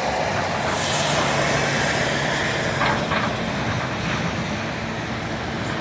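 Steady engine hum under a broad, even hiss, with no distinct knocks or impacts.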